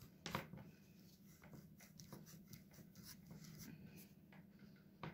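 Faint scratchy scrapes and clicks of a knife cutting the top off a black radish.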